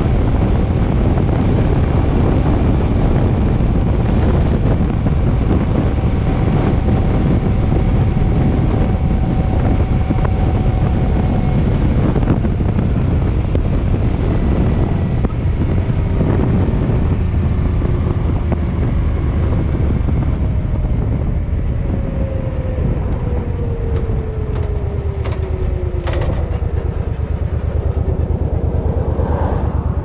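Heavy wind buffeting on the microphone of a Suzuki M50 V-twin motorcycle riding at road speed, with the engine running under it. A few faint falling tones appear in the second half.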